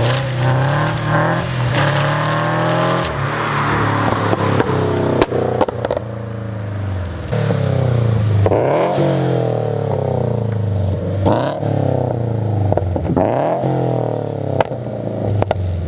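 2014 Subaru BRZ's flat-four engine through unequal-length headers and a catless full exhaust, revving up and falling back several times as the car drives past. Sharp pops and crackles from the backfire tune come through several times.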